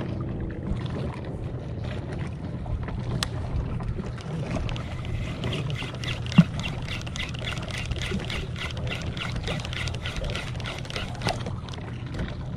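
Steady low hum of a boat's motor running, with water and wind noise around it; a single sharp knock about six seconds in.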